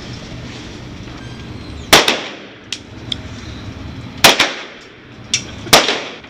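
Three loud gunshots about two seconds apart, each with a short ringing tail, and a few fainter, sharper cracks between them.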